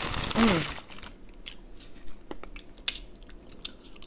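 Close-up chewing of thin, crispy crackers, Ritz Crisp & Thins, with scattered sharp crunches and crackles. A short hum from the eater, falling in pitch, comes about half a second in.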